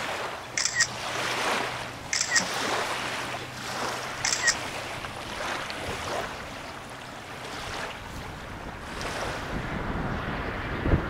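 Small waves lapping on a lakeshore in a light wind, with a faint low hum of a distant boat engine that fades out about six seconds in. Three short high chirps sound in the first five seconds, and wind rumbles on the microphone near the end.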